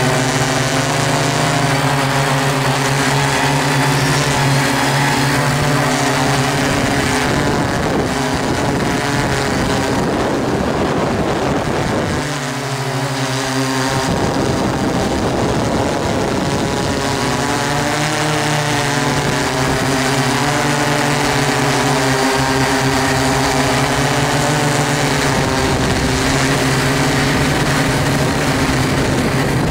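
DJI S800 hexacopter's six Tiger MN4014 320KV brushless motors spinning 15-inch propellers: a steady multi-tone drone hum heard from the camera slung beneath it. The pitch shifts now and then as the motors change speed, and about twelve seconds in the lowest tones drop out for roughly two seconds before returning.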